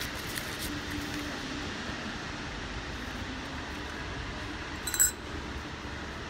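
Steady background hiss, with one sharp metallic clink about five seconds in as the steel differential parts (washers, clutch plates, gears) are handled.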